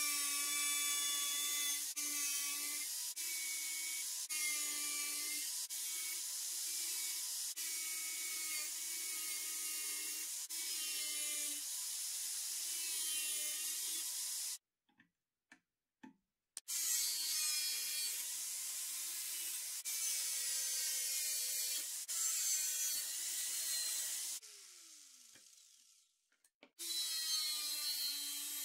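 Angle grinder with a thin cut-off disc cutting through a steel table saw blade: a steady motor whine with the disc grinding on the metal. The sound stops briefly about halfway, then later the grinder winds down with a falling whine and starts up again near the end.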